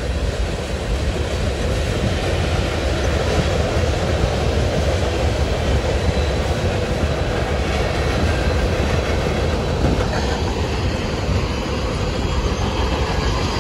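Freight cars of a mixed freight train rolling past: a steady rumble of steel wheels on the rails, heaviest in the low end.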